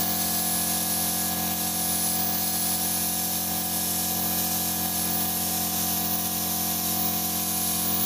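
Gravity-feed spray gun hissing steadily as it sprays finish onto a wooden tabletop, with a steady mechanical hum underneath.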